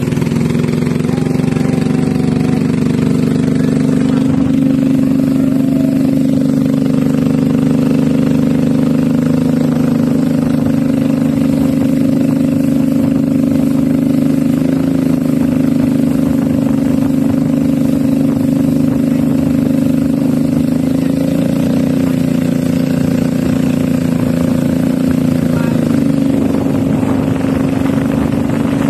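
Small boat engine running steadily at a constant speed, a loud even drone with no revving.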